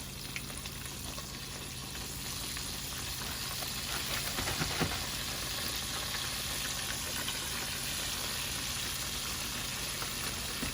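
Flour-coated chicken wings deep-frying in hot grease: a steady sizzle that grows louder about two seconds in, with a few small pops.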